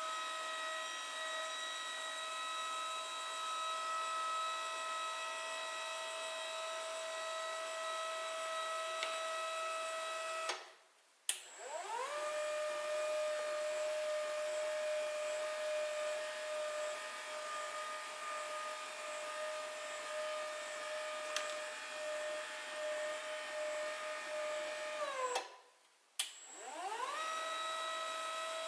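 Hydraulic lift's electric pump motor whining steadily as the lift moves. It cuts off about ten seconds in with a click, spins up again with a rising whine, runs steadily, winds down with falling pitch a few seconds before the end, and starts up once more near the end.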